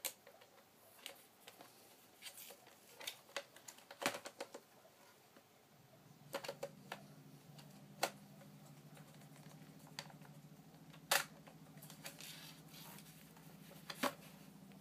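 Plastic clicks and knocks of a Panasonic Palmcorder PV-L559 VHS-C camcorder being handled and its buttons pressed. About six seconds in, a steady low mechanical hum from the camcorder starts and keeps on under the clicks.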